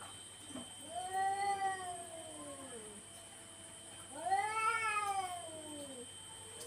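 Cats yowling in a territorial standoff: two long, drawn-out caterwauls, each rising and then falling in pitch, one about a second in and another about four seconds in. These are threat calls between rival cats disputing dominance.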